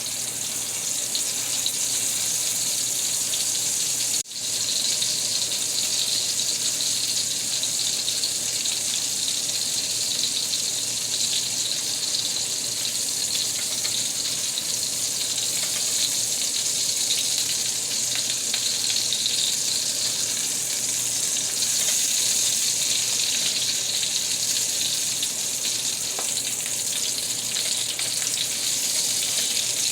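Ground-beef Salisbury steak patties sizzling steadily as they sear in mushroom butter in a hot pan. The sizzle cuts out for a moment about four seconds in.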